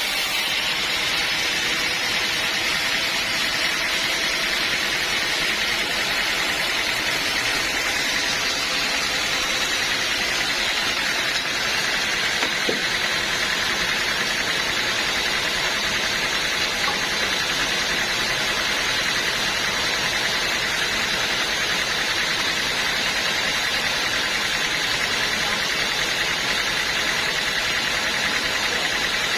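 Sawmill machinery running steadily: a constant mechanical noise with a high whine that holds the same pitch throughout.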